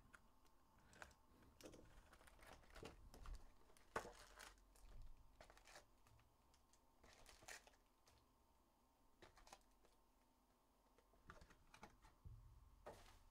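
Faint rustling, crinkling and small taps as a hobby box of Upper Deck Series Two hockey cards is opened and its foil-wrapped packs are handled and stacked.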